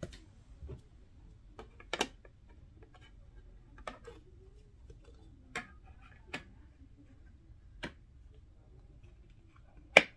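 Light plastic clicks and taps as a plastic figure is handled and fitted onto its black plastic display base, with one sharp, loud click near the end as its feet snap into place.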